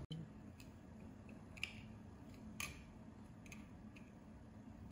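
A few faint, sharp clicks and taps, about one a second, from a metal NVMe SSD enclosure and the SSD being handled as the drive is fitted into its slot.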